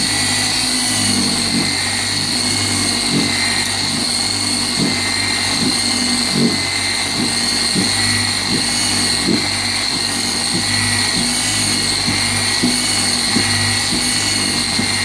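Rupes 21 random-orbital car polisher running steadily with a polishing pad and compound on car paint, with a high steady whine over a low pulse that repeats a little faster than once a second. This is the polishing stage that takes out 1000-grit wet-sanding scratches.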